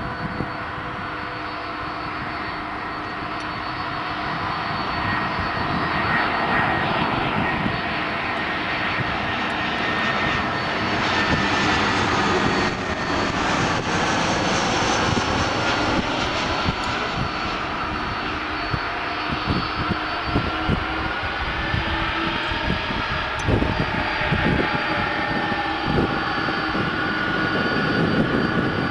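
Airbus A319 jet engines on a landing approach, passing low overhead. A steady roar swells as the aircraft comes close, and its high whining tones slide down in pitch as it goes by. The engine noise carries on as the aircraft rolls along the runway.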